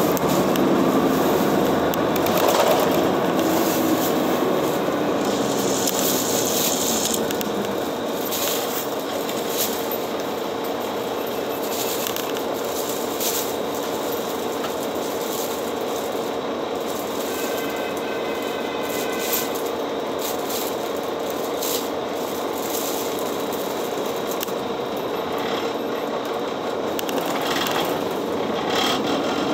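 City bus on the move, heard from inside: its engine runs with a steady hum while loose fittings rattle and click.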